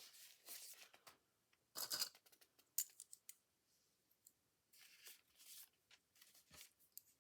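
Quiet handling of paper and clamps: a few short, soft rustles and scrapes, with a sharp click near the middle.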